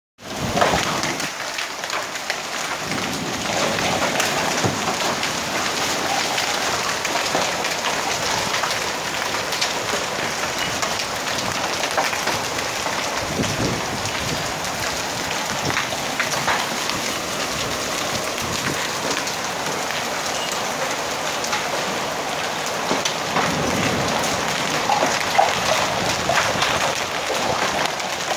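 Heavy rain and hail pelting down: a dense, steady hiss of rain with many sharp clicks of hailstones striking surfaces.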